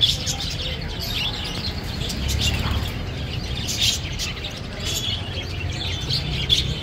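Many caged budgerigars chirping and chattering together in a dense, continuous twitter of short high calls, over a low steady rumble.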